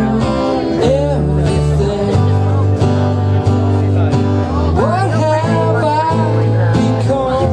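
Live rock trio playing: guitar over a bass guitar holding low notes that change about once a second, with drums keeping time.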